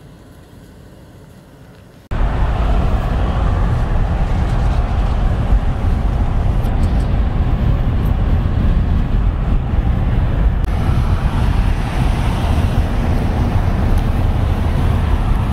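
Faint outdoor ambience for about two seconds, then a sudden cut to loud, steady road and wind noise inside the cabin of a moving Nissan Pathfinder.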